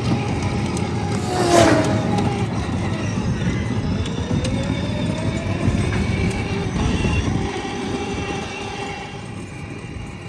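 Ride-on electric toy cars driving on asphalt: hard plastic wheels rumbling over the road with the thin whine of their small electric motors. About a second and a half in, a short squeal falls in pitch.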